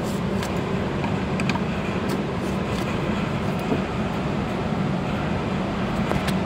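Steady drone of running machinery with a low hum, and a few faint clicks of metal being handled.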